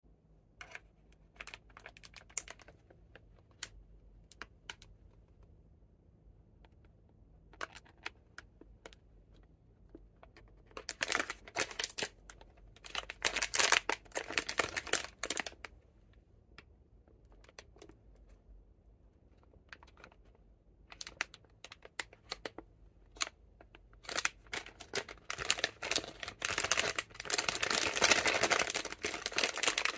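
Plastic ice cream wrapper crinkling and crackling as it is handled and turned over in the hands, in short spells of sharp clicks, thickest and loudest over the last few seconds.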